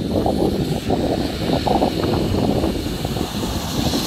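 A car approaching on a rain-soaked road, its tyre hiss through standing water growing louder near the end as it throws up spray, over a gusty low rumble of wind on the microphone.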